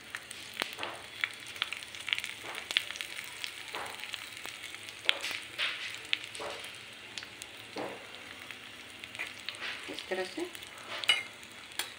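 Tadka of cumin seeds, dried red chillies and bay leaves sizzling in hot ghee in a small steel ladle, with the gas flame turned off. It gives a steady hiss with irregular crackling pops. Near the end a spoon stirs it in the ladle.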